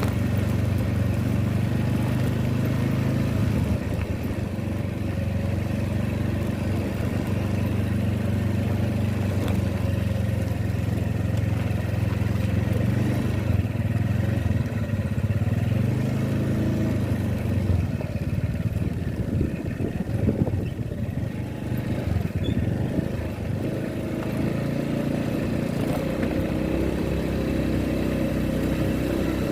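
Motor vehicle engine running steadily, its pitch shifting a little over time, with irregular knocks and rattles about two-thirds of the way through.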